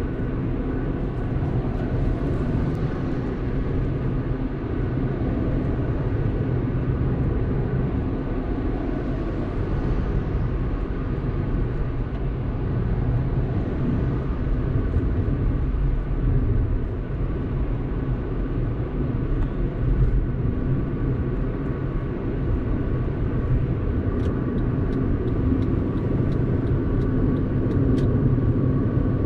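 Car driving along a road: a steady low rumble of tyres and engine with a faint steady hum above it. Near the end come a run of faint, quick, evenly spaced ticks.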